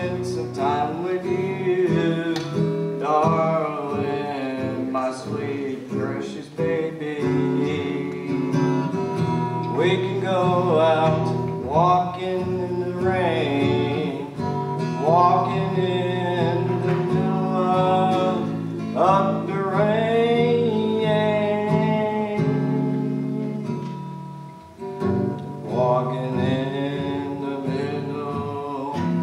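A man singing a slow song to his own acoustic guitar accompaniment, his voice in long phrases over sustained chords.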